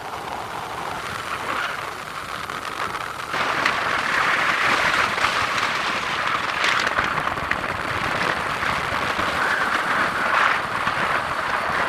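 Noise of a motorbike ride on a rough road: a steady rushing of wind and tyres that gets louder about three seconds in.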